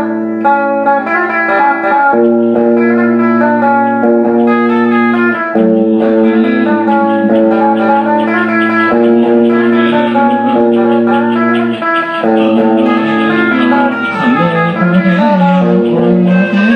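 Instrumental song intro: plucked guitar notes played over held low notes and chords that change every few seconds.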